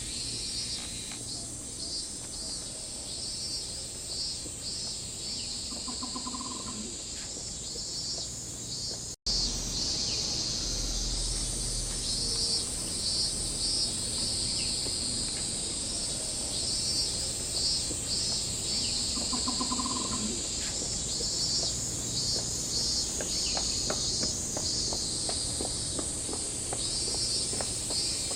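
Cicadas calling in chorus: a steady high buzz with a repeating pulsing call over it. There is a brief break in the sound about nine seconds in.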